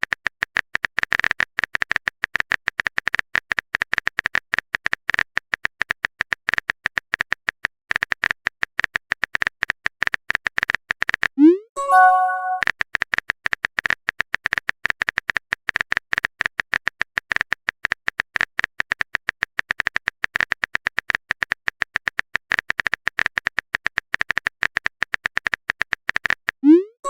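Rapid, steady clicking of a phone keyboard typing sound effect, with a short pause around 8 s. About 12 s in it breaks off for a short rising whoosh and chime of a message-sent notification, then the clicking resumes. The same chime starts again right at the end.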